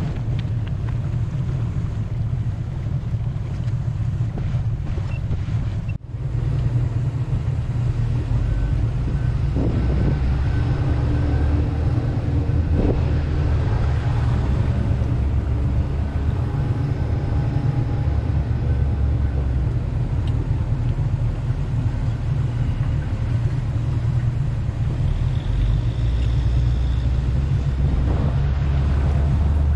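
Boat engine running steadily under way, a low drone with some wind noise on the microphone. The sound drops out briefly about six seconds in, then the drone carries on a little louder.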